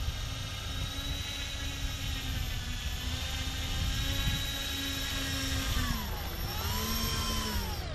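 Multirotor camera drone's propellers whining steadily as it hovers and flies, the pitch sagging and recovering near the end as it slows over the parked plane.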